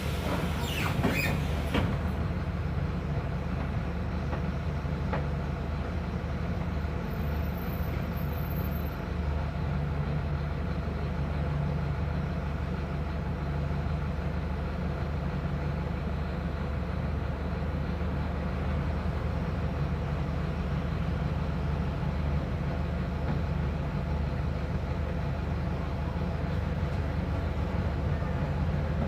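Diesel engine of a Mercedes-Benz OF 1519 city bus (Marcopolo Torino body) running steadily with a deep, even drone.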